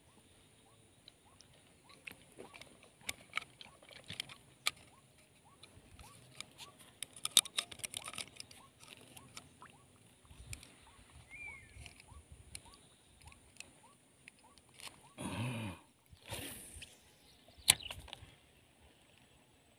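Light water splashing and scattered small clicks from a hooked snakehead at the surface and the line being handled, with a couple of louder rushing splashes and a sharp click near the end.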